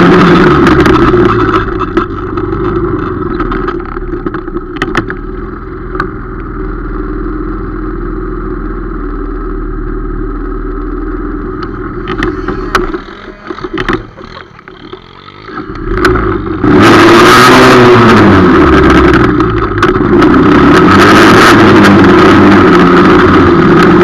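250 cc quad ATV engine revving hard, then running steadily at lower revs. Around 14 seconds in it drops off briefly, then revs up and down hard again for the last seven seconds, its pitch rising and falling repeatedly as the quad accelerates.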